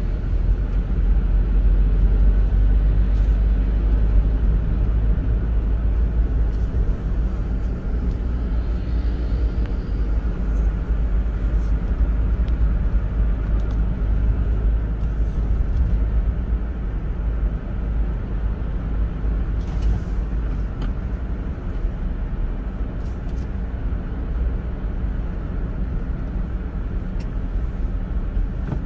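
A car driving steadily in city traffic: an even, low rumble of tyres on the road and the engine, heard from inside the cabin, with a few faint ticks.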